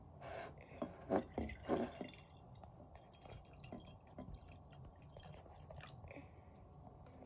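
White vinegar poured from a plastic bottle into a glass mason jar: faint liquid pouring and splashing, with a few louder splashes in the first two seconds.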